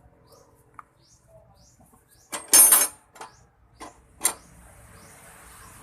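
Clattering from metal tools or parts being handled: a loud rattling burst about halfway through, then three sharp clicks, then a short faint hiss. Birds chirp faintly at the start.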